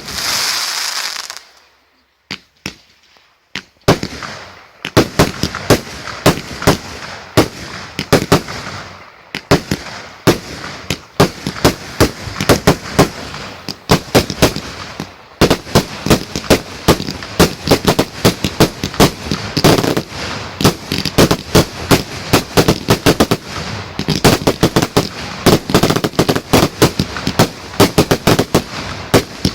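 Fireworks: a short hissing rush at the start, a lull of a couple of seconds, then from about four seconds in a long rapid barrage of sharp bangs and crackling reports, several a second, that runs on unbroken.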